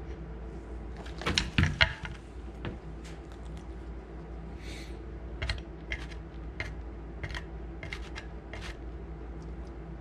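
Light clicks and knocks of a wooden food-puzzle board and its plastic cups as the pieces are set down by hand and then pecked and nudged by a Harris's hawk's beak. A quick flurry of clatters comes about a second in, followed by scattered single taps, over a steady low hum.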